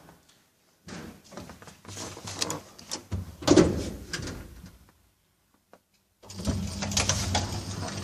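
Lift doors sliding and clunking, then a steady low hum from about six seconds in.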